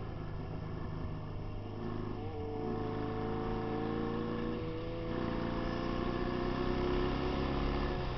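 Vintage Royal Enfield–built Indian motorcycle engine running under throttle on a dirt track. Its pitch rises from about two seconds in, drops briefly about five seconds in, then climbs again.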